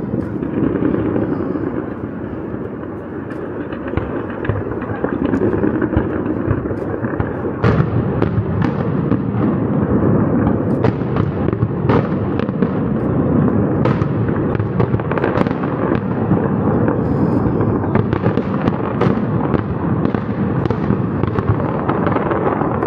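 Aerial fireworks barrage: a continuous rumble of overlapping bursts, with many sharp cracks and pops coming thick and fast from about eight seconds in.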